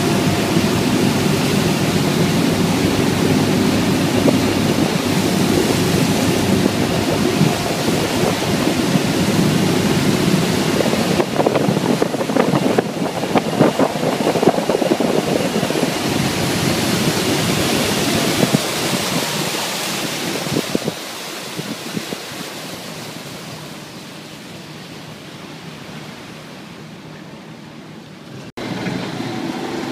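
A tour boat's engine running underway, with its churning wake and wind on the microphone making a steady rushing noise. The sound grows quieter over the last third, then jumps back up abruptly near the end.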